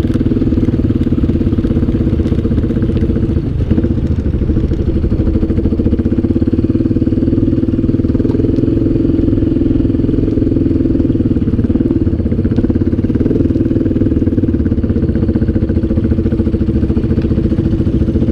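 ATV engine running steadily under way, with a short dip in the engine note about three and a half seconds in.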